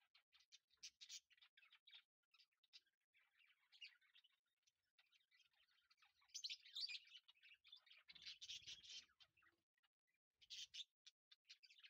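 Near silence, with faint, quick, high-pitched chirps scattered throughout, a little louder in a stretch past the middle.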